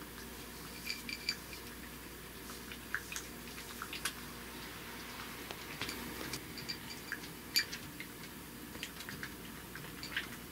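A cat crunching Canagan dry kibble from a small dish: short, irregular crunches and clicks over a steady low room hum.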